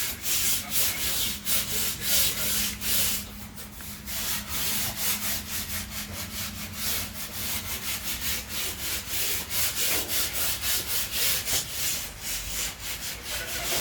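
Hand sanding on a car body panel: a rapid back-and-forth rasp of abrasive strokes, a few a second, with a brief lull about four seconds in and a slower, sparser stretch near the end.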